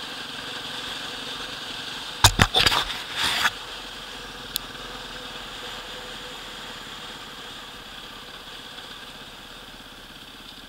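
Enduro motorcycle engine running steadily at low revs while riding, heard through a helmet-mounted camera. About two seconds in comes a second or so of loud, irregular knocks and rumbles, and a single click a little later.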